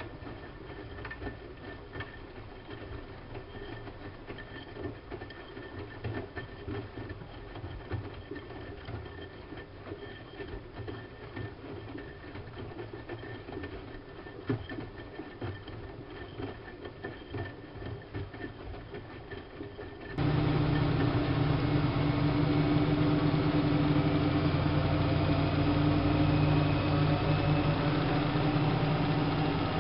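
Siemens Siwamat IQ washing machine running, with light irregular ticks and knocks. About two-thirds of the way through, a much louder steady hum starts suddenly and holds.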